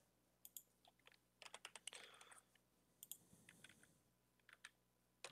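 Faint typing on a computer keyboard: irregular runs of short key clicks as a terminal command is typed.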